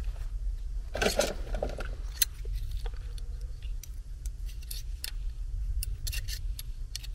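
Small sheet-metal hot surface ignitor mounting bracket pieces being handled, giving a string of light metallic clicks and a brief scrape about a second in, over a steady low hum.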